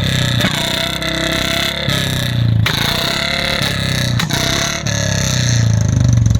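Motorcycle engine running steadily, getting louder near the end.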